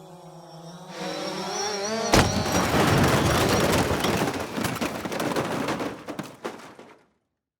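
Sustained music tones, then a sudden loud boom about two seconds in, followed by a dense crackling rumble with many sharp cracks that fades and cuts off abruptly near the end.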